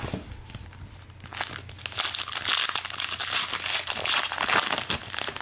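Foil wrapper of a trading-card pack crinkling and tearing as it is ripped open and handled, starting about a second in and running dense and crackly until just before the end.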